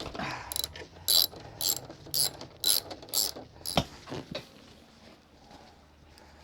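Socket ratchet clicking in short strokes, about two a second, loosening a motorcycle seat bolt, then a single sharp knock.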